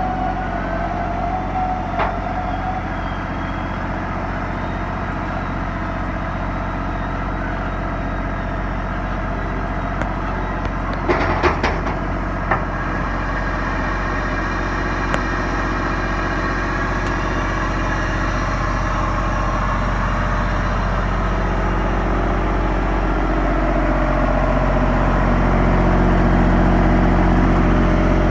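Vacuum excavator engine running steadily, with a short cluster of sharp knocks about eleven seconds in and the engine getting a little louder over the last several seconds.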